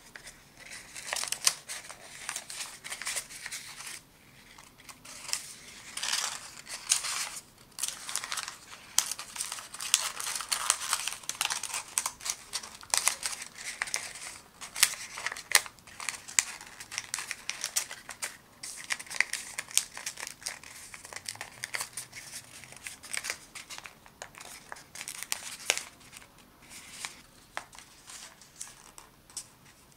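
Origami paper rustling and crinkling as hands fold and crease it, in irregular crisp rustles and small taps with brief pauses.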